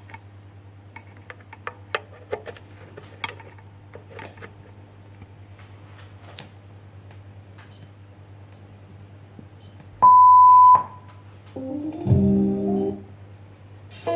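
Test tones played through a speaker on a freshly repaired JBL GTO 504 car amplifier: a high steady tone for about four seconds, two shorter, even higher tones, then a lower steady beep of under a second, followed near the end by a short burst of music. A low steady hum and scattered clicks run underneath.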